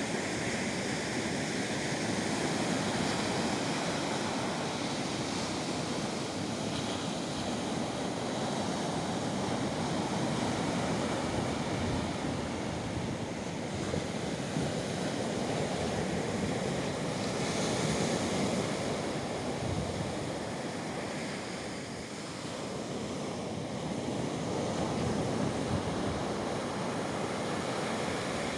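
Sea surf: waves breaking and washing up the shore in a continuous rushing noise that swells and eases, dipping briefly about three-quarters of the way through.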